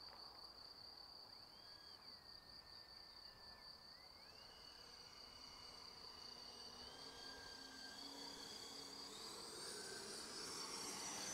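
Faint whine of the FMS Viper 70mm electric ducted fan jet coming in on a slow pass, climbing in pitch in steps and growing louder toward the end. A steady high insect chirring runs underneath.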